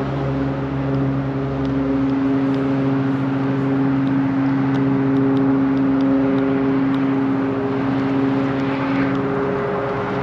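A passing motorboat's engine running with a steady, even drone, a little louder around the middle.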